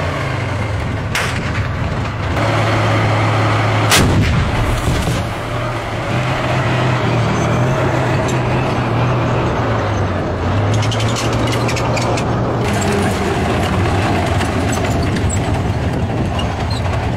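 Tank's diesel engine running steadily with a low hum as it drives, cut by two loud bangs about one and four seconds in, the second the louder. A run of sharp rattling clicks comes about ten to twelve seconds in.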